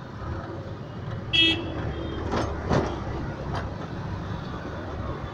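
Auto-rickshaw engine running steadily in city traffic, heard from inside the rickshaw. A vehicle horn toots once, briefly, about a second and a half in, and a couple of short clattering knocks follow about a second later.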